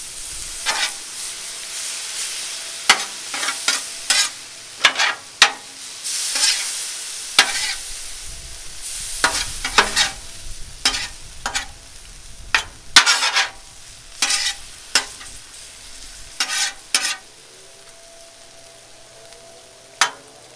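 Thin-sliced American Wagyu steak sizzling in its own rendered fat on a Blackstone steel griddle, while a metal spatula scrapes and clacks against the plate again and again, tossing the meat. The spatula strokes stop about three seconds before the end, leaving just the sizzle.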